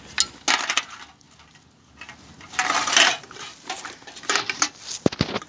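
Empty drink cans and bottles clinking and rattling as they are handled, in a few separate clanks and knocks with a louder rustling scrape about halfway through.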